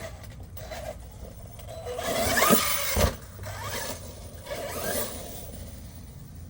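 Arrma Fireteam RC car on a 4S battery accelerating hard, its motor whining up and down in pitch over a rush of noise, then one sharp thud about three seconds in as it lands a jump. A smaller burst of motor noise follows near five seconds.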